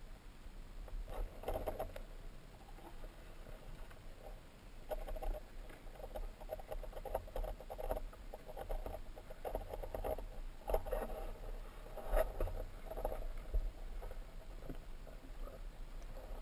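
Underwater crackling and clicking picked up by an underwater camera's microphone, coming in irregular clusters over a low rumble, busiest in the middle stretch.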